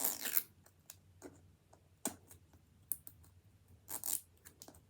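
Small plastic pieces and packaging being handled: scattered light clicks and rustles, a few sharper clicks about two, three and four seconds in.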